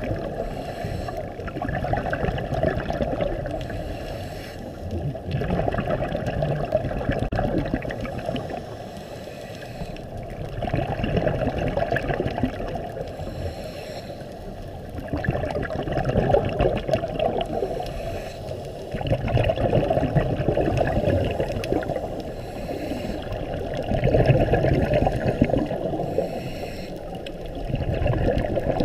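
Scuba diver's exhaled bubbles from the regulator, heard underwater through the camera's waterproof housing: a muffled gurgling rush that swells with each breath, about every four to five seconds.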